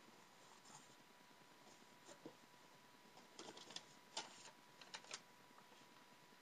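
Very quiet handling of a cardboard shipping box and its packing paper: scattered faint rustles and light taps, clustered from about three to five seconds in.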